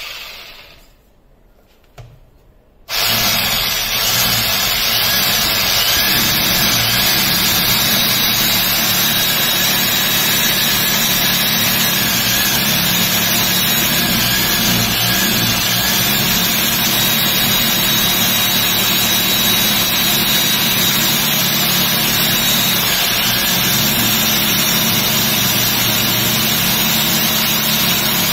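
Electric rotary hammer drill boring into a wall. It winds down and stops at the start, with a small click about two seconds in, then starts again about three seconds in and runs steadily under load through the rest.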